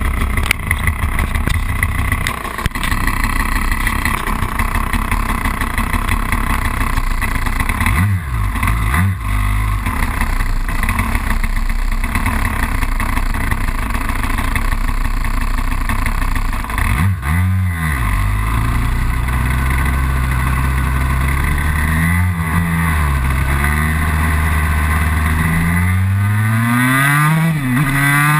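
KTM SX 144 two-stroke single-cylinder engine heard close up from a camera mounted on the bike. It runs with a couple of quick throttle blips, then the revs climb and drop again and again as the bike rides off and accelerates.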